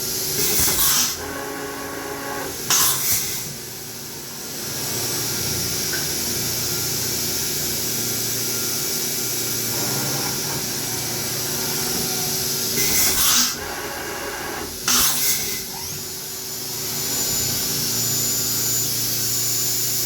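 CNC milling machine at work on a rotary index: a steady spindle and motor hiss with several steady tones underneath. Four brief louder hissing bursts come about half a second in, near three seconds, and twice more in the second half.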